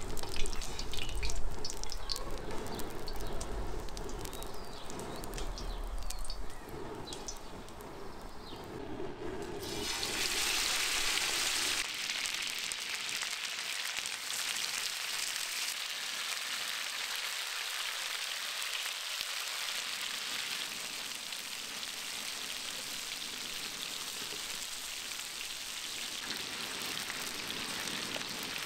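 Diced lamb sizzling in hot rendered fat on a large steel frying disc. The sizzle starts suddenly about ten seconds in as the meat goes into the pan, then runs on as a steady hiss. Before that there are only light clicks and handling knocks.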